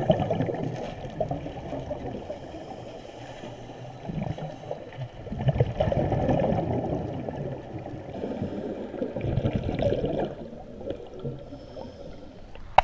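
Muffled rushing and gurgling of water heard through an underwater camera, swelling in surges every few seconds.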